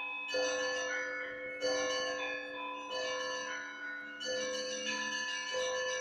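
Russian Orthodox church bells ringing for the liturgy. Several bells of different pitch are struck in a rhythmic pattern: a mid-pitched bell sounds about every second and a quarter over strokes of smaller, higher bells, each note left ringing on.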